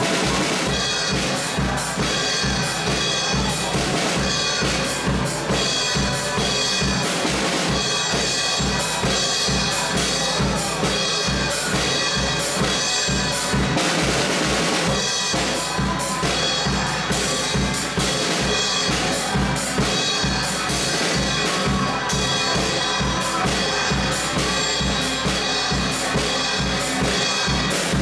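Drum kit played with sticks, bass drum and snare keeping a steady beat with cymbal hits, along with the other instruments of a pop song.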